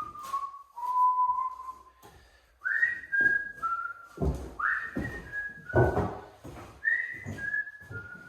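A person whistling a tune in short falling phrases, mixed with several knocks and handling clatter.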